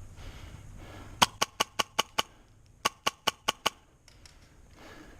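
Airsoft gun firing two quick strings of shots, about five a second: six shots, a short pause, then five more.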